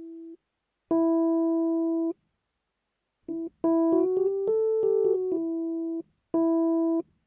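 Fender Rhodes electric piano tine notes picked up by its pickup: the same mid-range note struck and held twice, each cut off abruptly, then a short run of notes stepping up and back down, and the first note once more. It is one key heard in a chosen voicing position, the tine set at a particular height and distance from the pickup.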